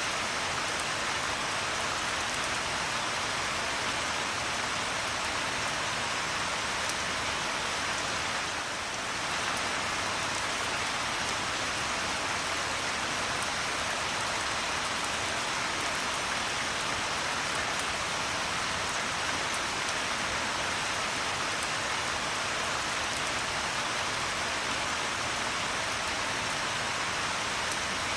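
Steady rain falling: an even, dense hiss with faint scattered drop ticks, dipping slightly for a moment about nine seconds in.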